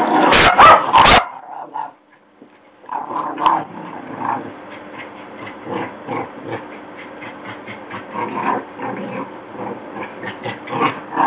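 Jack Russell terrier and Border Collie at play: a quick run of loud, sharp barks right at the start, then, after a short pause, rough play growling and intermittent barks as the dogs tug at a stuffed toy.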